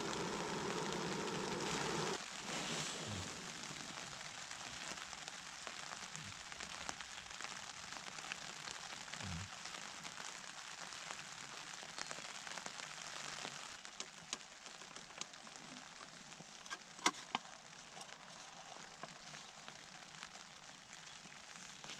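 Backpacking canister gas stove burner hissing steadily, cut off about two seconds in. Then rain patters steadily on the tent's nylon flysheet, with scattered ticks and a few sharp clicks near the end.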